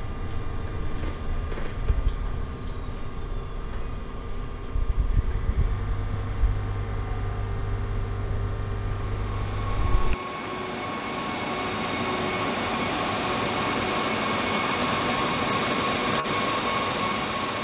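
Ride inside a Scania battery-electric bus under way: low road rumble with thin steady tones above it and no engine note. About ten seconds in, the rumble stops suddenly and a steady hiss with a faint tone takes over.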